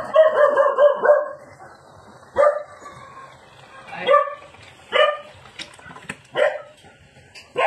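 An animal calling in short, sharp, pitched cries: a quick run of them at the start, then single calls every second or so.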